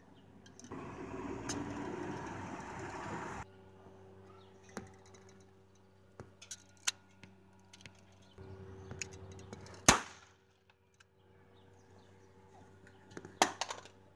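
Sharp bangs of a toy revolver being fired: one loud shot about ten seconds in and a cluster of bangs near the end, with a few smaller clicks between. Before them comes a rush of noise lasting about three seconds that cuts off abruptly.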